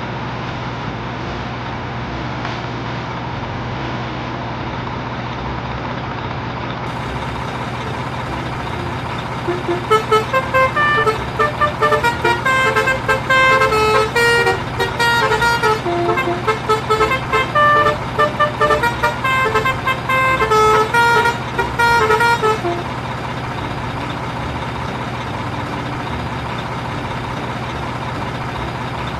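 Steady truck-engine drone, joined about a third of the way in by a multi-tone vehicle horn playing a rapid tune of short notes, which stops about three-quarters of the way through.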